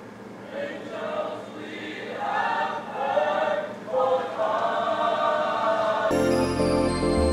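Music with choir-style singing, voices building up for the first six seconds, then bass and a fuller band coming in near the end.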